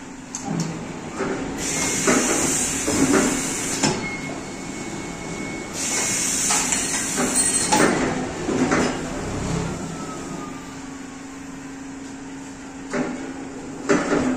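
Pneumatic flat-bed screen printing machine working through its print cycle: two long hisses of air, about two seconds in and again about six seconds in, with clunks and rattles as the screen frame and squeegee carriage slide, over a steady machine hum. A further pair of clunks comes near the end as the frame lifts.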